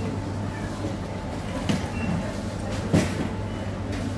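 Shop-floor background noise: a steady low hum with two short knocks, the second louder, about three seconds in, and a couple of faint short high beeps.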